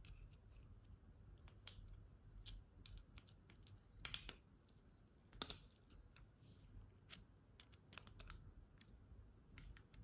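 Faint, sparse metallic clicks and scrapes of a thin-bladed screwdriver working inside a tubeless tyre valve stem to loosen the valve core, the sharpest clicks about four and five and a half seconds in; otherwise near silence.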